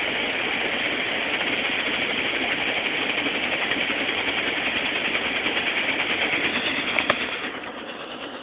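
Pressurised liquid-fuel Peak camp stove burner running with a steady hiss, the fuel vaporising properly after preheating. A brief click about seven seconds in, and the sound gets quieter near the end.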